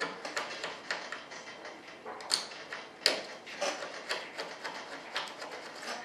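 A small hand tool scraping and picking along the edge of a mold, making irregular scratches and clicks, with two sharper clicks around the middle.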